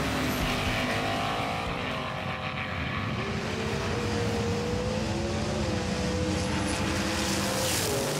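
Race car engine sound, held at high revs with slow rises and falls in pitch. Because diecast cars have no engines, this is an added engine sound laid over two toy cars racing down a track.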